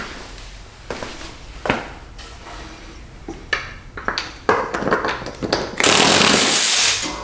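Scattered metal knocks and clanks as tools and the mower deck are handled, then, about six seconds in, a loud burst of a power gun running for about a second, backing out a spindle bolt.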